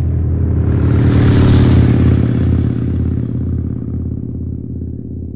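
Harley-Davidson V-twin motorcycle engine, starting abruptly and swelling to its loudest about two seconds in. It then slowly fades, settling into an uneven low throb.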